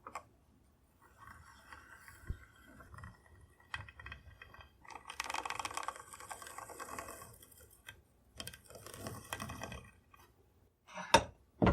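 Pencil scratching a layout line along a square on a walnut rifle stock blank, in three strokes of a few seconds each, with light clicks and knocks as the square is set down and moved, the loudest knocks near the end.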